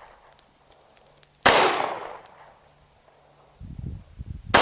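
Two 9mm pistol shots from a Glock 26, about three seconds apart: one about a second and a half in and one at the very end. Each cracks sharply and trails off over about a second.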